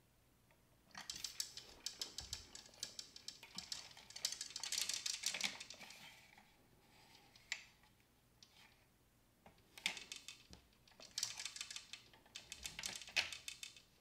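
Plastic gears of a Downspin game unit clicking rapidly as a key turns them, in two spells of several seconds with a short pause between.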